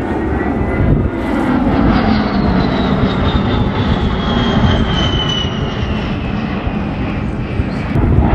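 An A-10C Thunderbolt II's twin General Electric TF34 turbofans run loud as the jet passes. A high whine slides down in pitch through the middle of the pass.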